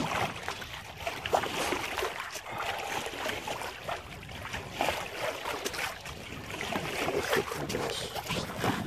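A small sailboat moving under sail in light wind: water lapping and splashing irregularly against the hull, with wind on the microphone.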